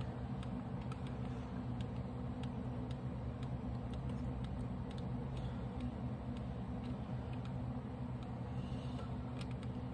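Steady low hum with faint, scattered clicks.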